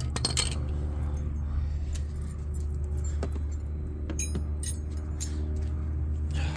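Metal sockets and hand tools clinking as they are picked through, a handful of sharp clinks over a steady low hum.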